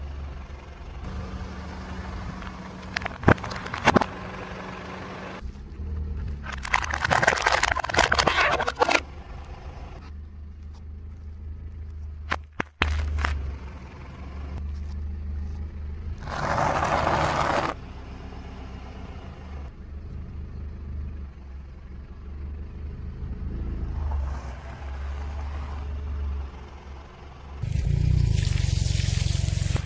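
A car tyre rolling over and crushing a series of objects, in several separate crunching, crackling bursts with pauses between them: thin plastic cups cracking, tomatoes squashing and splitting, and a bag of Bugles corn snacks crunching. A car engine's low hum runs steadily underneath.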